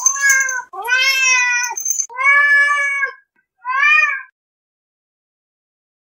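A domestic cat meowing four times in quick succession: long, drawn-out meows that rise and fall in pitch, the last one shorter.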